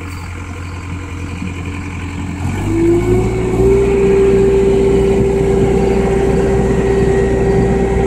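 Skid steer engine running and throttling up about two and a half seconds in, as a steady high whine slides up in pitch and then holds while it works the tree spade attachment.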